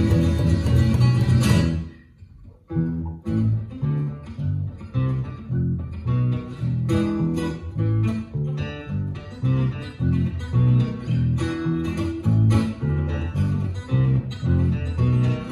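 Acoustic guitar and electric bass playing live. A full passage breaks off about two seconds in; after a short pause the music resumes as a steady run of picked guitar notes over bass notes.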